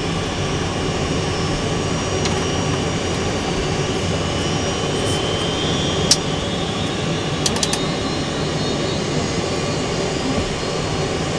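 Boeing 747 jet engines running steadily, heard from inside the flight deck, with a few sharp clicks about six and seven and a half seconds in.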